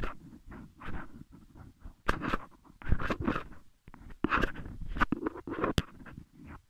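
Pen scratching on paper in short, irregular drawing strokes close to the microphone, with a low rubbing rumble from the hand on the page and a sharp tick near the end.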